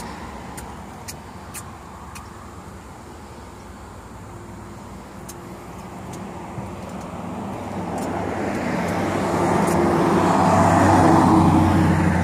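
A motor vehicle passing on a nearby road: engine hum and tyre noise grow steadily louder from about a third of the way in, peak near the end, then begin to fade. A few faint light clicks come in the first couple of seconds.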